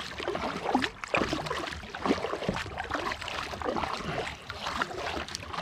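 Kayak paddle dipping and splashing in the water stroke after stroke, with water gurgling along the hull, as the kayak is paddled fast.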